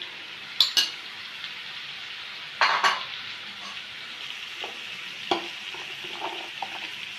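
Cubed raw chicken sizzling steadily as it fries in butter and ginger-garlic paste in a non-stick pan, with a few sharp knocks as the pieces are tipped in from a container, the loudest about two and a half seconds in.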